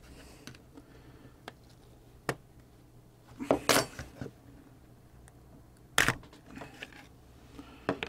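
Clicks and knocks of hard plastic as the housing of a Renault Laguna key-card reader is handled and pried apart to get at its circuit board. There is a louder run of clicks about three and a half seconds in and a single sharp snap about six seconds in.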